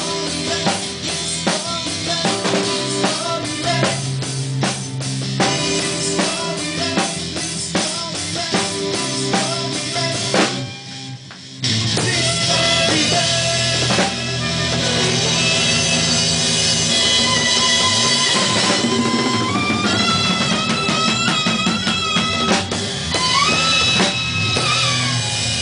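A small band rehearsing: drum kit, congas and saxophone playing a quick beat, with a short break about eleven seconds in. After the break the saxophone plays a melody of long held notes over the band.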